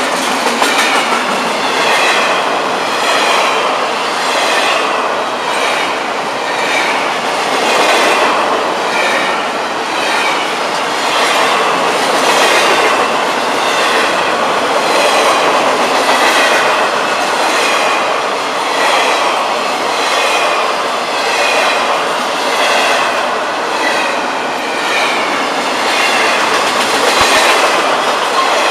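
Double-stack intermodal well cars of a Florida East Coast freight train rolling past close by: a steady clatter and rumble of steel wheels on the rails, swelling and easing every couple of seconds as each truck passes, with a high whine that comes and goes.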